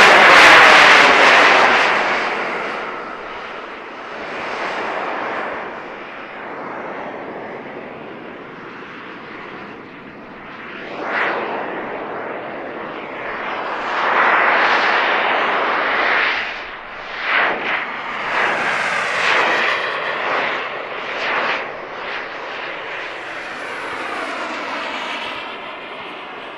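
Turbine engine of a radio-controlled model jet flying overhead, a rushing noise that swells and fades as it passes. It is loudest right at the start, then swells again several times from about ten seconds in.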